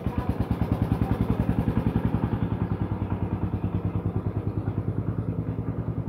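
A small engine running steadily with a fast, even chugging beat, about ten beats a second.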